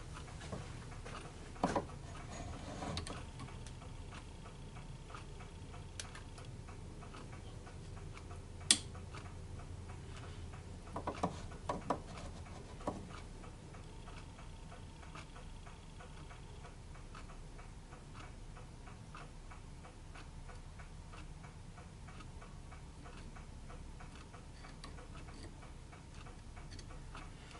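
Faint, regular ticking throughout, with a few sharper clicks about two seconds in, about nine seconds in and in a short cluster around eleven to thirteen seconds.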